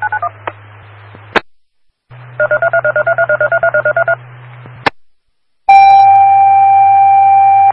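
Dispatch radio alert tones over a police scanner: about two seconds of a rapid warble switching between a high and a low pitch, then, after a short gap, a loud steady tone held for about two seconds. The tones signal an incoming emergency dispatch, and a short squelch click sounds at each break in the transmission.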